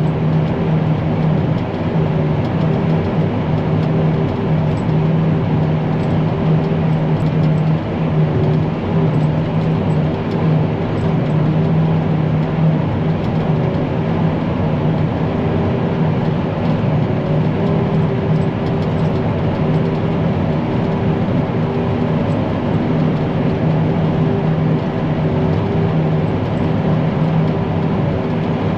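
Forage harvester running steadily while chopping: a constant machine drone with a steady low hum and a higher steady tone.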